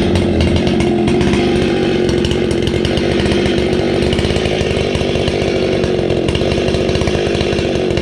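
Gas chainsaw running at a steady engine speed, not yet cutting.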